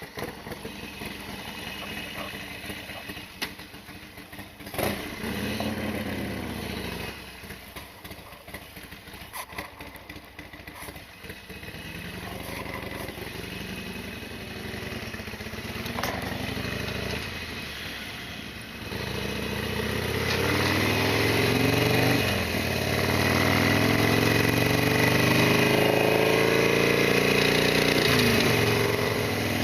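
Harley-Davidson Sportster XL1200R's air-cooled 1200 cc V-twin starting up abruptly and running with revs rising and falling. From about two-thirds of the way through it runs louder, with repeated rising and falling pitch under load.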